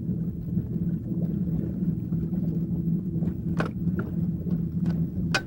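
Boat motor humming steadily at a constant pitch, with a few short clicks or taps in the second half.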